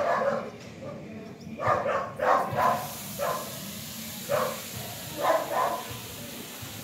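A dog barking, about eight short barks at irregular intervals, some in quick pairs.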